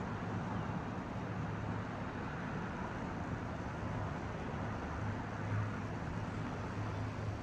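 Steady urban traffic rumble with a constant low hum underneath and no distinct events.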